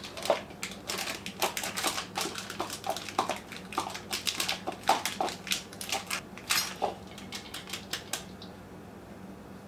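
A block of cheese being grated by hand on a Pampered Chef handheld grater: quick scraping strokes, about three a second, that stop about eight seconds in.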